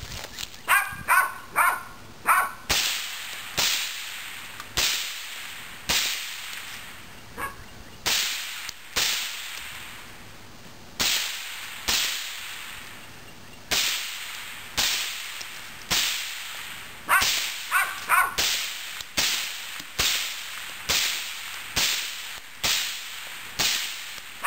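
Suppressed gunshots from an IWI Tavor bullpup rifle fitted with a Thompson Machine Sixteen suppressor, fired semi-automatically about once a second with a few quicker strings. Each shot is a sharp crack followed by a short echo, with the suppressed report described as nice and quiet.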